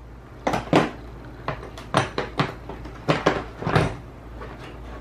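Hand tools being set into and lifted out of the moulded slots of a hard plastic tool case: a string of sharp plastic clacks and knocks, about a dozen over the first four seconds.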